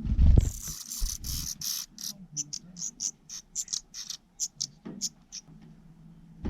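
Nestling birds giving rapid, high-pitched begging calls, about three or four short cheeps a second, which thin out and stop near the end. The calls follow a low thump at the start.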